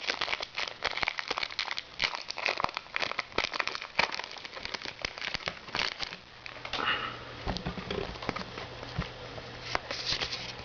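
Foil Pokémon booster pack wrapper crinkling and crackling as it is torn open and handled, busy for about the first six seconds, then quieter and sparser.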